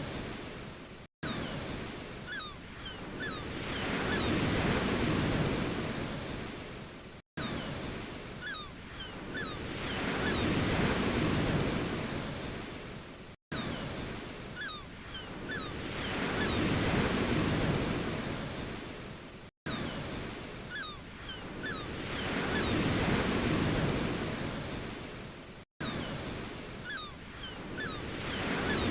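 Ocean waves washing in and drawing back, each wave swelling and then fading, with a few faint short chirps on each swell. The recording is a short loop that repeats about every six seconds, with a brief gap of silence at each join.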